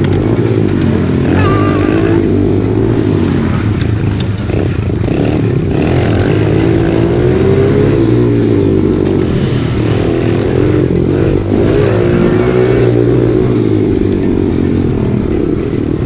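Small four-stroke 110cc pit bike engine ridden hard, its revs rising and falling with the throttle through the gears.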